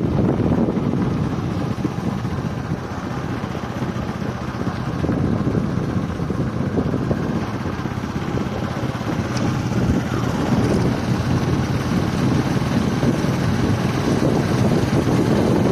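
Wind rushing over the microphone while riding in a moving vehicle, over a steady low rumble.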